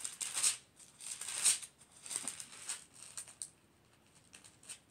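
Thin Bible pages being turned and rustled by hand: several quick papery swishes in the first three seconds, then two lighter ones near the end.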